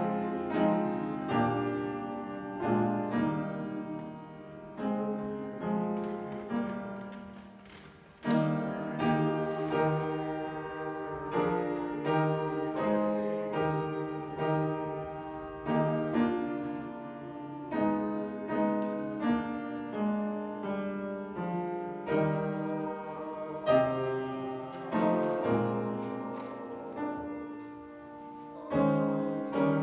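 Piano playing a slow hymn tune, chords struck and left to fade, with a brief pause about eight seconds in before the next phrase.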